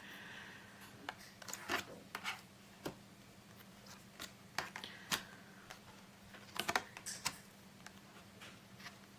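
Tarot cards being handled and sorted through by hand: scattered light clicks and rustles of card stock, over a faint steady hum.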